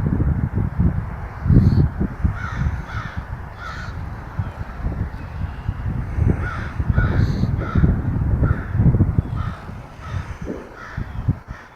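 Crows cawing in repeated runs of short calls, over a loud, irregular low thumping rumble from an unidentified source.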